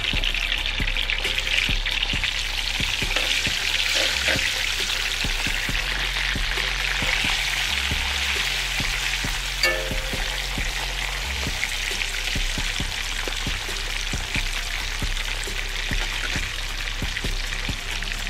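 Rosemary fries frying in smoked beef tallow in a 15-inch cast-iron skillet: a steady crackling sizzle as they are dropped in a few at a time and stirred with metal tongs, with one sharp click a little past the middle. The fat is not as hot as the cook would like.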